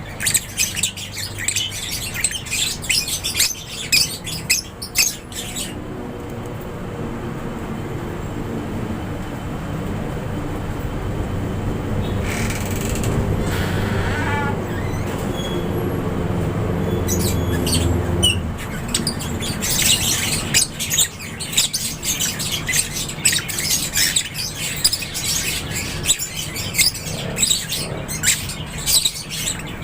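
Aviary lovebirds and budgies chirping in a dense, rapid chorus. About six seconds in the chirping stops while a low, steady drone builds for some twelve seconds; it cuts off and the chirping resumes.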